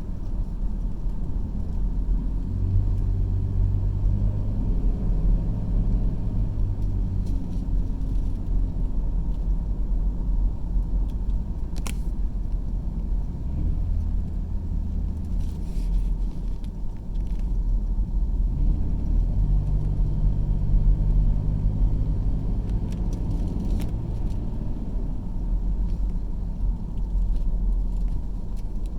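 Car driving on a road: a steady low rumble of road noise and engine, with the engine note coming up and easing off a few times. There is a single sharp click about twelve seconds in.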